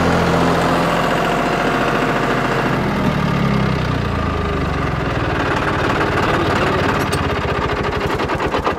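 John Deere 5310 three-cylinder diesel tractor engine running at raised PTO speed, about 1700–1800 rpm, then throttled back about three seconds in; its pitch falls and it settles toward idle with distinct firing beats.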